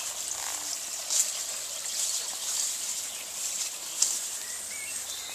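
A small brook babbling and trickling steadily, with a bird chirping a few times near the end.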